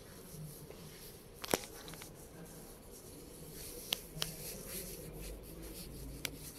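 Faint room tone with handling noise from a handheld phone: a few sharp clicks and light rubbing on the microphone, the loudest click about a second and a half in.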